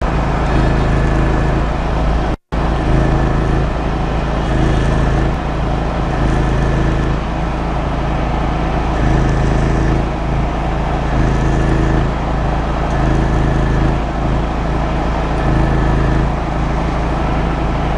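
Kamastsu 6900CX 5 kW petrol generator running steadily under the load of an inverter stick welder, with the hiss and crackle of the welding arc over the engine drone. The sound drops out for a moment about two and a half seconds in.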